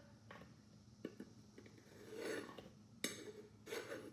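Faint clinks and scrapes of a metal spoon against a stainless steel measuring cup as flour is spooned in and levelled off, with a sharper clink about three seconds in.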